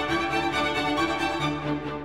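Slow instrumental background music with long held string notes over a sustained low note.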